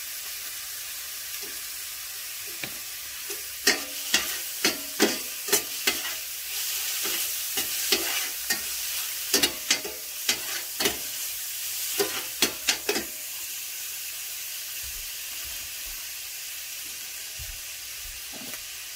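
Crab meat and garlic sizzling in oil in a stainless steel sauté pan, with a metal spoon clinking and scraping against the pan as it is stirred. The clinks come thick through the middle and die away near the end, leaving the steady sizzle.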